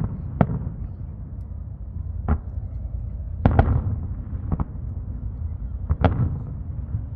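Aerial firework shells bursting high in the sky: about seven sharp bangs spread over several seconds, two of them in quick pairs, over a steady low background rumble.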